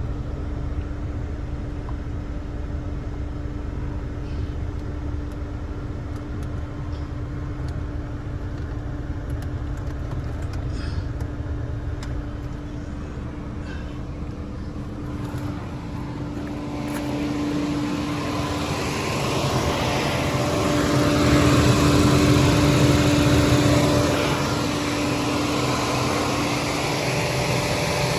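Chevy Cruze engine idling with a steady hum while it is run up to temperature after a water pump replacement. About seventeen seconds in, a fan comes on and a loud rushing of air rises over the idle.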